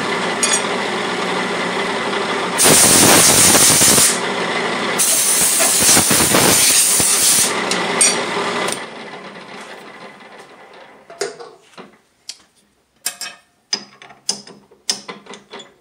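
Drill press motor running steadily, with two long blasts from a compressed-air blow gun clearing the filing chips. About nine seconds in the motor is switched off and spins down, followed by a series of light metallic clicks as the chuck is loosened to free the threaded rod.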